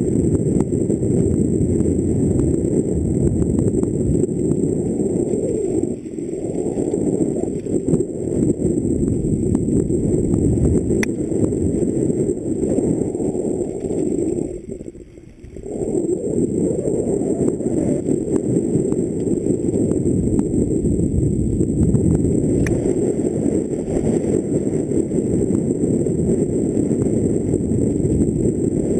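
Wind rushing over a helmet camera's microphone together with the rumble of mountain bike tyres on a rough dirt trail during a fast downhill descent. The sound drops away briefly a little past the middle, then comes back.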